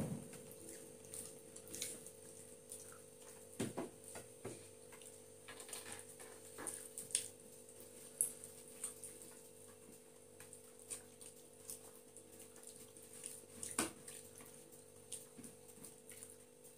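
Quiet eating sounds of people eating rice and chicken with their hands: scattered small wet smacks and clicks from chewing and from fingers working food on the plates. A faint steady hum runs underneath.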